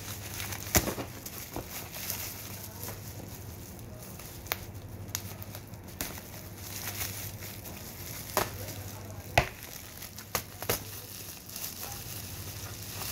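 Bubble-wrap plastic around a parcel being handled and cut open with scissors: crinkling and crackling, with a handful of sharp snaps.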